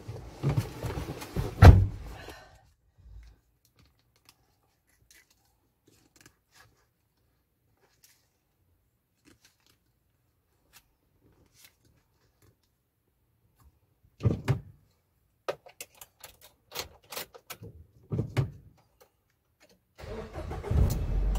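Nissan Tiida car door pulled shut with a heavy thump about two seconds in. Later come keys jangling and clicking, and near the end the engine starts and keeps running.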